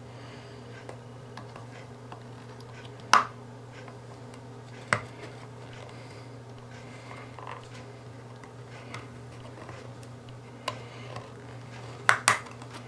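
Scattered sharp clicks and taps of a small tool against the plastic case of an Android TV box as it is pried and worked apart, two of them close together near the end. A steady low hum lies underneath.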